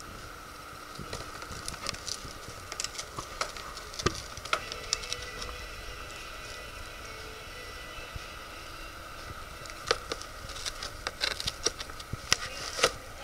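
Plastic wrapping and a cardboard shoebox crinkling and rustling as a cat noses into them: scattered irregular crackles that bunch up in the first few seconds and again near the end, over a faint steady hum.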